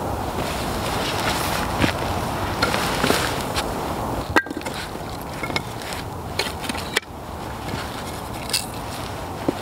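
Split firewood sticks knocking and scraping against each other and the bricks as they are picked up and laid into a brick fire pit, a few sharp clacks scattered through, over a steady background hiss.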